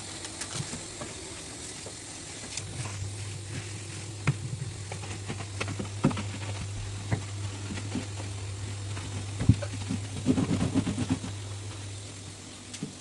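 Clicks, taps and light knocks of objects being handled during kitchen cleaning, with a quick run of rattling taps about ten seconds in. A steady low hum comes in about three seconds in and fades out near the end.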